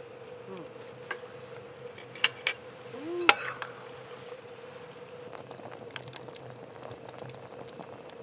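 Tableware and chopsticks clinking during a meal: a few sharp clicks, the loudest about three seconds in, and scattered light clicks after, over a faint steady hum.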